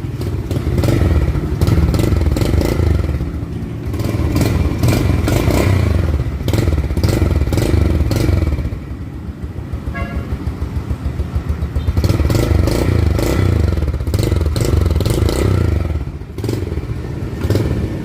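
Yamaha Crypton Z's 110cc single-cylinder four-stroke engine running with the throttle blipped up and down. It drops to a quieter, pulsing idle for a few seconds midway, then is revved again.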